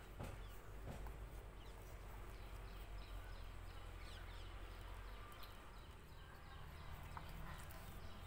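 Faint background with a steady low hum and many small, quick chirps high in pitch. A few soft rustles come early on as a thin polythene sheet is folded by hand.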